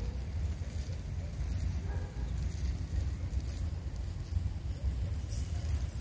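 Wind buffeting the microphone: a steady low rumble that swells and eases, with a faint hiss above it.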